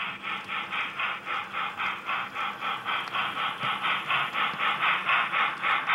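Steam locomotive chuffing in a steady, even rhythm of about five chuffs a second, the sound of a model HO-scale Southern Pacific steam locomotive running past.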